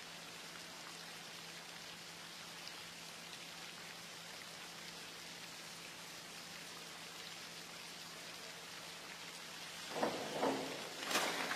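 Steady rain-like hiss of water spraying onto a diving pool's surface, with a few short sounds and a sharp burst near the end.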